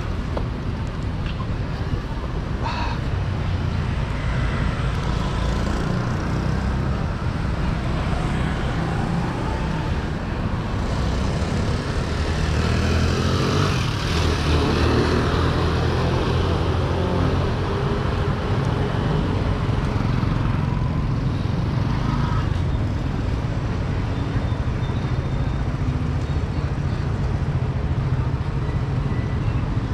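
Street traffic: a continuous hum of motor vehicles running past, growing somewhat louder around the middle.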